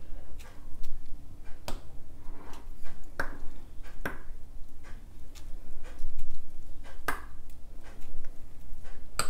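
Spoon clinking and tapping against small ceramic chutney bowls and the ceramic serving plate while tamarind and mint chutneys are spooned over puffed rice: a string of light clinks and taps at irregular intervals, a few of them ringing briefly.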